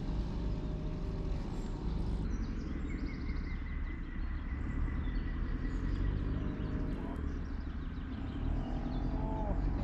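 Steady low rumble of heavy machinery, trucks and an excavator working at the lake. A few birds chirp briefly near the end.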